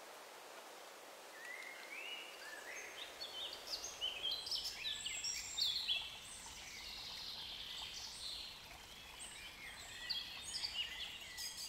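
Birds chirping: many short calls that rise and fall, overlapping, beginning about a second and a half in, over a faint steady outdoor hiss.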